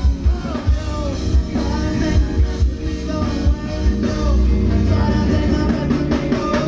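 Live band playing a song on an outdoor stage: a singer over guitars and drums.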